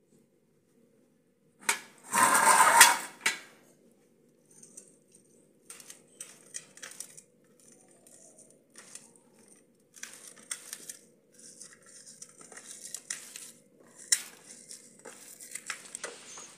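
Hands crumbling and kneading fresh chhena (drained paneer) on a steel plate: soft, irregular rubbing and scraping of fingers and palm against the metal, with light clicks. About two seconds in comes a louder noisy burst lasting about a second.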